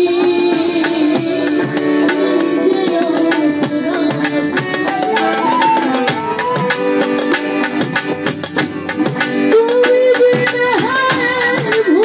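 Live Baul folk band playing between sung lines: hand drums keep a fast, steady rhythm under sustained melodic instruments. A woman's singing voice comes back in near the end.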